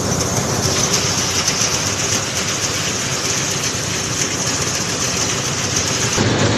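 Rice harvesting machine's engine running steadily, a loud continuous drone with a hiss over it; the low hum grows louder near the end.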